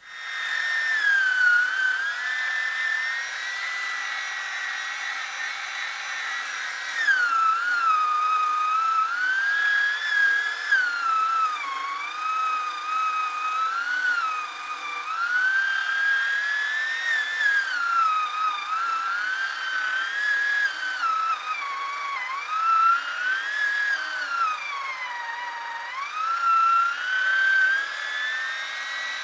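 Chainsaw running at high revs, its pitch rising and falling every few seconds.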